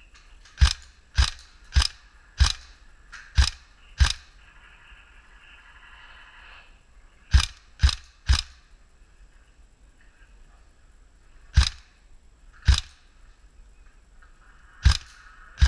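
Tokyo Marui AKS-74U recoil-shock electric airsoft gun fired on semi-auto: about a dozen single sharp shots, six in quick succession at first, then three more, then a few spaced singles.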